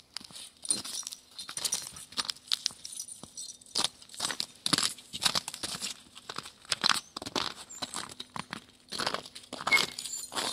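Footsteps crunching in packed snow, about two steps a second, with a brief pause near the start.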